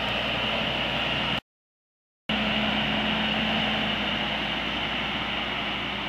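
Fendt 924 tractor's six-cylinder diesel engine running steadily while pulling a six-furrow plough. The sound cuts out completely for just under a second about a second and a half in, then returns with a steady low hum.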